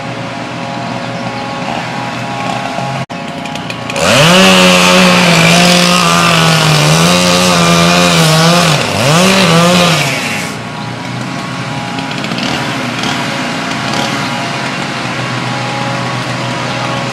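Chainsaw revving up to full throttle, running steadily for about six seconds, easing off briefly and revving again, then dropping back. A quieter steady engine hum runs underneath before and after.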